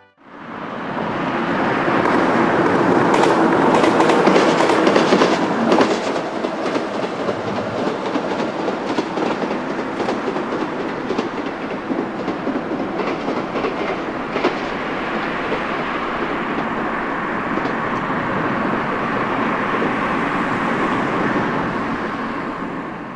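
JR West 113 series electric train running past, its wheels clicking over rail joints. It is loudest in the first few seconds, then runs on steadily.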